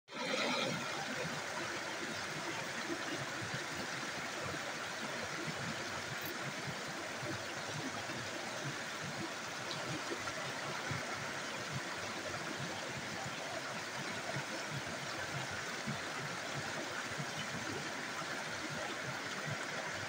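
Small rocky stream spilling over boulders in a short cascade: a steady, even rush of running water.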